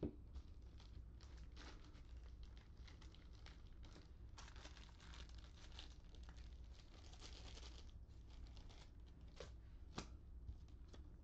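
Faint crinkling and tearing of foil baseball-card pack wrappers being handled, with a light tick near the end.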